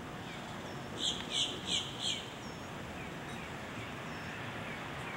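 A bird calling four quick loud notes in a row about a second in, with smaller, fainter chirps from birds here and there, over a steady hiss of wind.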